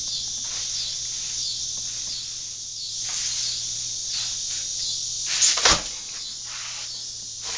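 Steady, pulsing high chirring of insects such as crickets, with straw broom bristles brushing and scraping against the wall siding and concrete floor in short strokes. One sharp knock about five and a half seconds in.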